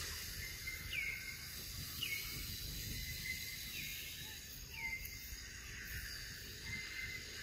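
Forest ambience: a steady high hiss with four short calls that fall in pitch, about a second or so apart, from a bird.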